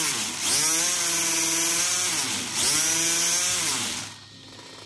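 Brushless RC motor spinning a LEGO Technic wheel through its axle with no load, revved in throttle bursts: a whine that climbs in pitch as the wheel spins up, holds, then falls away, twice over, with a loud hiss throughout. It dies away about four seconds in.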